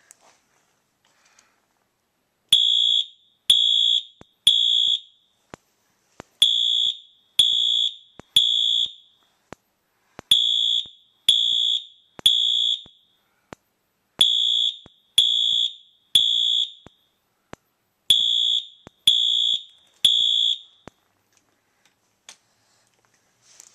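Wheelock MT multitone fire alarm sounding a temporal-three (Code 3) evacuation pattern: groups of three high-pitched half-second beeps, five groups about four seconds apart, starting a couple of seconds in.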